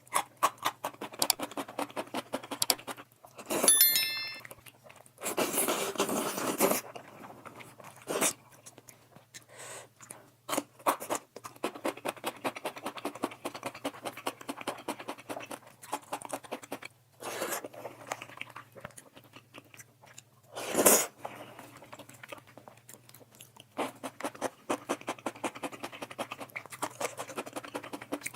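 Close-miked mukbang eating of soft instant noodles: continuous wet chewing and mouth smacking, with a few louder, longer bursts of noise in the first seven seconds and again about two-thirds of the way through.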